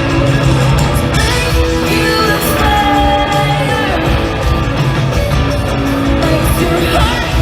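Live country-rock band playing loudly, with a woman singing over electric guitar.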